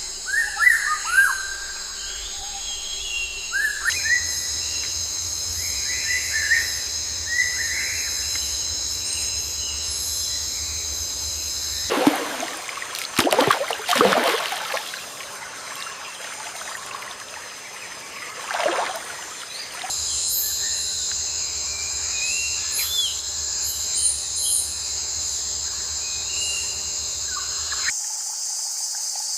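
Nature ambience of insects chirring steadily with birds chirping over it. Partway through, the insect drone drops out for several seconds while a few louder, downward-sweeping calls or swishes sound. The background shifts abruptly several times.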